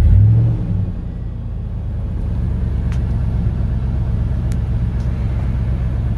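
A 1997 Ford F-150's engine idling, heard from inside the cab: a steady low rumble that swells briefly at the start, dips, then settles, with a few faint ticks.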